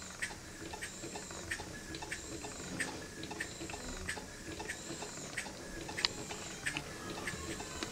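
Model beam engine running slowly: a steady, light clicking from its moving parts, about four ticks a second, with a short soft hiss that comes round about every second and a third.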